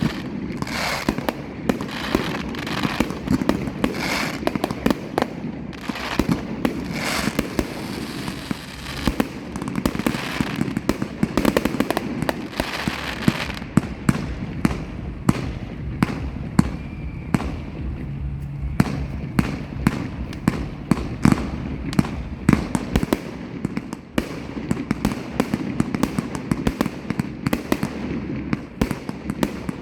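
Fireworks going off: a dense, continuous string of sharp bangs and crackles over a low rumble, with no let-up.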